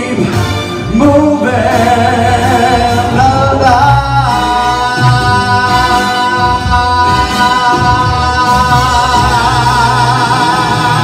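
Singer belting over grand piano accompaniment: the voice climbs through a few notes, then from about four seconds in holds one long high note with vibrato, the song's closing note.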